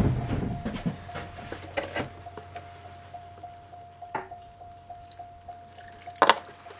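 Liquid poured and dribbled from a clear plastic bottle into the air intake of a Cadillac 4.9 L V8, priming an engine the owner thinks will not run because its fuel pump has quit. Small clicks of the bottle, with handling knocks at the start and a sharp clatter about six seconds in.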